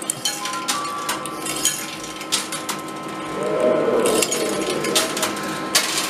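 Coins clinking and dropping in an arcade coin pusher machine: many small metallic clicks, with a denser run of them near the end, and a few short electronic beeps.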